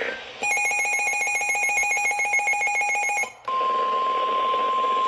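An electronic alert signal: a rapidly pulsing, warbling burst for about three seconds, then after a brief gap a steady single-pitch alarm tone, the NOAA Weather Radio warning tone that comes before a tornado warning broadcast.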